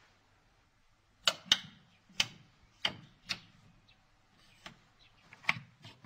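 Wooden abacus beads being flicked and clacking together as someone works sums, in sharp irregular clicks that begin about a second in.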